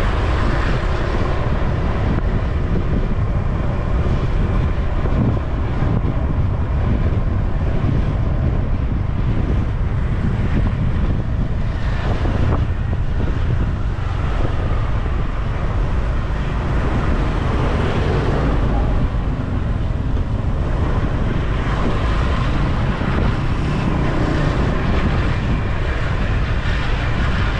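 Steady wind rumble on the microphone of a moving rider, with road-traffic noise underneath.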